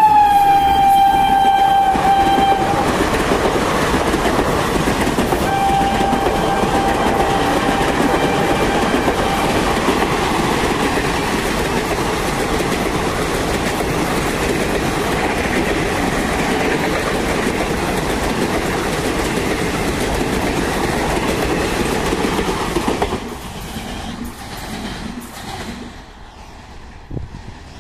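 WAP-4 electric locomotive's horn blaring as it passes at speed, dropping in pitch as it goes by and stopping a few seconds in; a second, fainter horn blast follows shortly after. Passenger coaches rush past with wheels clattering over the rail joints, until the noise drops off suddenly near the end.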